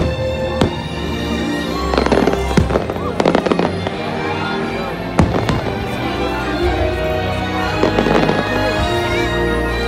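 Fireworks bursting over loud show music: single sharp bangs about half a second and five seconds in, and clusters of rapid crackling from glitter shells at about two, three and eight seconds.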